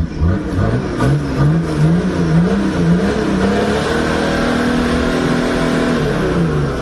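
Off-road 4x4's engine revving, its pitch rising and falling repeatedly, then held higher for a couple of seconds before dropping near the end.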